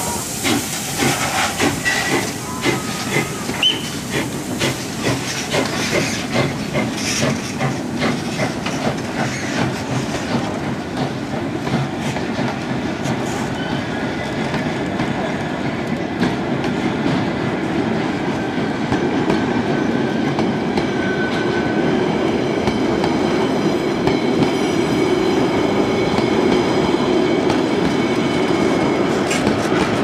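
A small steam tram locomotive passing at slow speed with rhythmic chuffs and a hiss of steam, then wooden tram carriages rolling by, their wheels clacking over the rail joints in a steady rolling noise that slowly grows louder.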